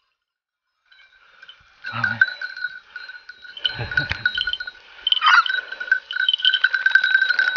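After a second of silence, bells on hunting dogs jangle steadily as the dogs move about, with a few low thumps and a short falling cry about five seconds in.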